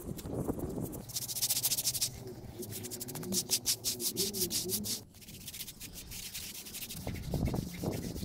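Hand float rubbing over damp fresh sand-cement screed in quick back-and-forth strokes, a gritty scraping rasp that pauses briefly about five seconds in and then resumes.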